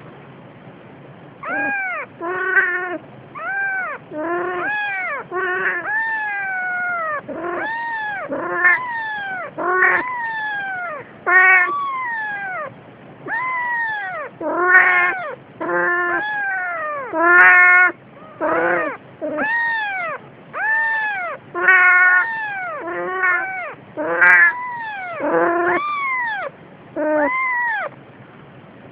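Newborn kitten mewing over and over, starting about a second and a half in. The cries are short and high-pitched, come roughly one a second, and each one rises and then falls in pitch.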